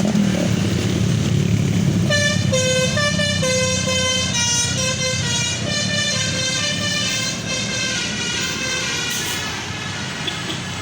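Basuri telolet horn playing a quick melody of stepped notes, starting about two seconds in and fading out after about eight seconds, over the steady low rumble of a running engine.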